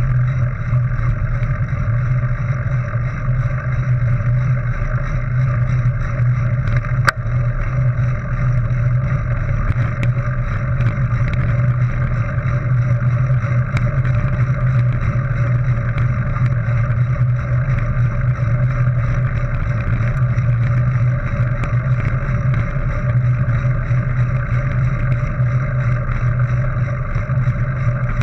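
Steady wind rumble and tyre noise as a mountain bike rolls along a dirt track, muffled through a GoPro HERO 3's housing, with one sharp knock about seven seconds in and a few faint ticks later.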